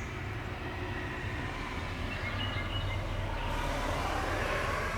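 A car driving past on the street, its engine and tyre noise growing slowly louder.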